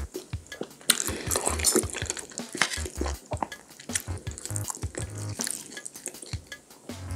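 Close-miked clicks and crackling of a fork picking through crispy fried pork cutlet on a plate, with a glass set down on the table and utensils tapping the dish.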